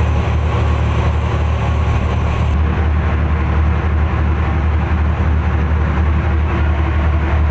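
Fishing trawler's engine running steadily, a loud, even low drone with no change in speed.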